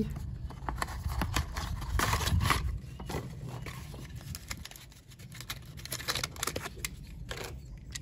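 Hands opening a diecast toy car's packaging: rustling and crinkling with scattered clicks and taps, busiest about two seconds in.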